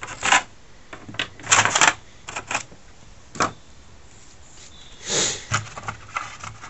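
Irregular clicks, taps and rustles of the Colortune kit's parts being handled in their moulded plastic tray, about seven short bursts spread over several seconds.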